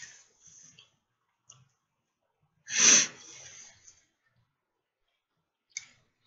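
Mouth sounds of a man eating ribs: scattered soft smacking clicks, and one loud, short breathy rush about three seconds in, trailing off over the next second.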